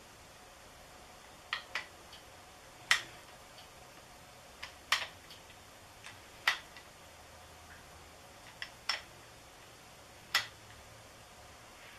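Sharp metallic clicks, singly and in pairs about a second or two apart, from a ratchet and socket working the camshaft sprocket bolt of an LS V8's timing set.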